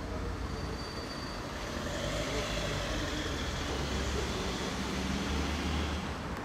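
Steady motor-vehicle noise, like road traffic, swelling about two seconds in and easing off near the end.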